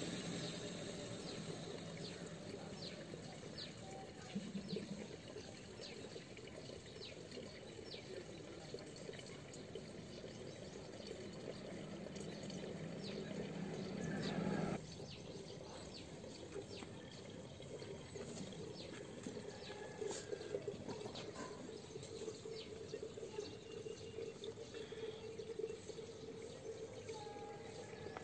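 Faint outdoor background noise with scattered short, high chirps. A low hum cuts off abruptly about halfway through.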